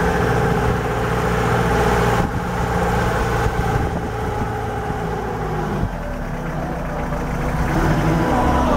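Vehicle engine holding the vehicle back on a steep downhill in low-range gear, engine braking, with a steady drone. The pitch falls and the level dips about five to six seconds in, then the drone builds again near the end.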